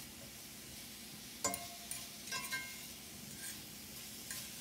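Asparagus and cherry tomatoes sizzling in a cast-iron skillet while a fork stirs them, with a few short ringing clinks of the fork against the pan, the sharpest about a second and a half in.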